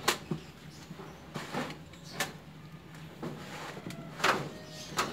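Persian kittens scuffling in and around a plastic litter box: several sharp knocks and scrapes about a second apart as they bump the box and the wall.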